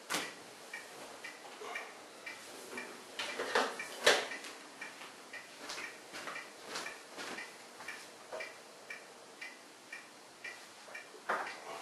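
Regular ticking, about two ticks a second, with occasional louder knocks and clicks. The loudest are a pair of knocks about three and a half and four seconds in.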